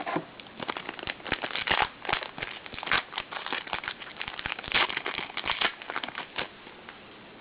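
Crinkling and crackling of a trading-card pack wrapper and the cards inside being handled, a dense run of irregular crackles that stops near the end.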